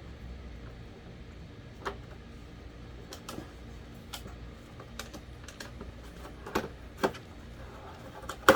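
Irregular light clicks and taps of plastic electric-fan parts being handled and fitted together during reassembly, the sharpest click near the end.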